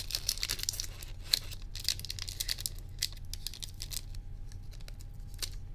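A foil trading-card booster pack being torn open by hand: quick crinkling and ripping crackles, dense at first and sparser in the second half. The sealed foil is stubborn and hard to tear.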